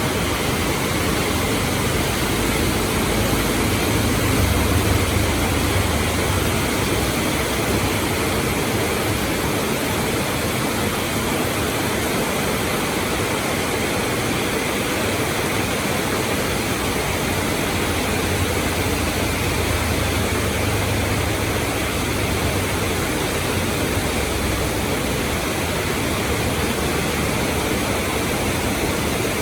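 Heavy rain pouring down steadily on a road. A low rumble of traffic swells and fades twice, about four seconds in and again past the middle.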